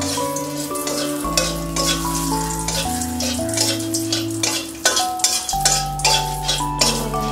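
Bay leaves and spices sizzling in hot oil in a metal karahi, with a spatula stirring and scraping the pan in short strokes, over background music with held bass and melody notes.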